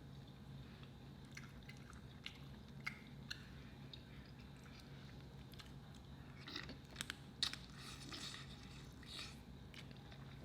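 Quiet close-up mouth sounds of a person chewing food: scattered small clicks and smacks, busier about six to seven and a half seconds in, over a faint steady hum.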